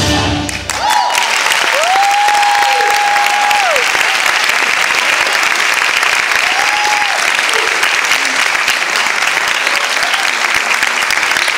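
Dance music cuts off just under a second in, and a theatre audience breaks into loud, steady applause. A couple of long, high held cheers rise above the clapping, the longest a second or so in and a shorter one about halfway through.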